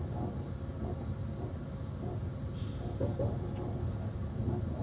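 Steady low rumble inside a Thalys TGV driving cab running at high speed, with a brief hiss a little past halfway and a few faint clicks.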